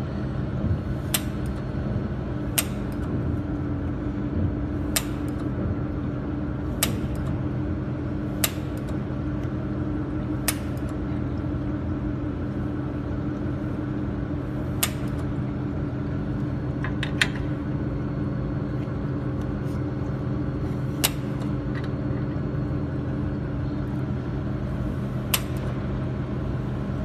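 Steady hum of a powered-on YAG jewelry laser welding machine, with about ten sharp clicks at irregular intervals of one to four seconds.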